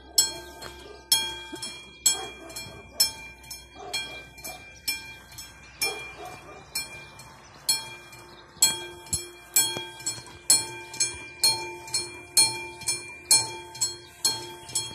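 Railway level-crossing warning bell striking over and over, a metallic ding about once a second that rings on after each strike. About halfway through, the strikes come twice as fast.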